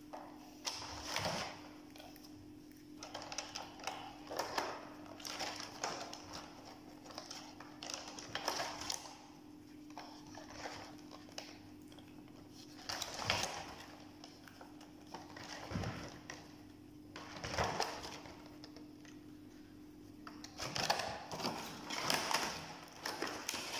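Clear plastic clamshell strawberry punnets being handled, clicking and crinkling in irregular bursts every second or two, over a steady low hum.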